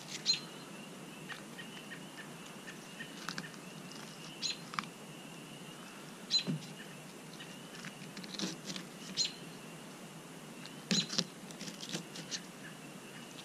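Fillet knife cutting down the backbone of a white perch, with scattered small clicks and crunches at irregular intervals as the blade works through the bones. A faint steady high tone runs behind.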